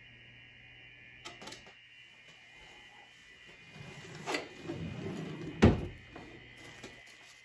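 Light clicks as a bread maker's lid is opened after a bake cycle, then rattling handling and one sharp knock late on, the loudest sound, over a faint steady hum.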